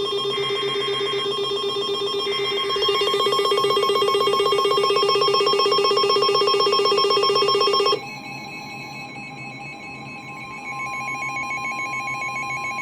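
Emergency Alert System alert tones: shrill electronic tones pulsing rapidly. They get louder about three seconds in, then switch to a different, quieter set of tones about eight seconds in. These are the attention signal that precedes a severe thunderstorm warning.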